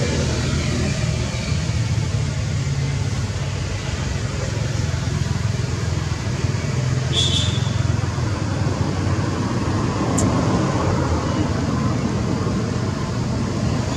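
Steady low rumbling background noise, with a brief high squeak about seven seconds in and a sharp click about ten seconds in.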